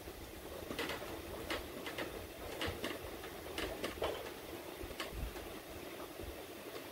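A series of light, irregular metallic clicks as the rear axle is raised on its new 4-link suspension to check travel; the axle is coming up into the frame cross member.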